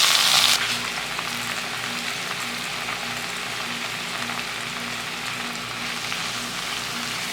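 Crushed onions and curry leaves sizzling in hot oil left over from frying fish. The sizzle is loud at first and settles about half a second in to a steady, quieter frying hiss.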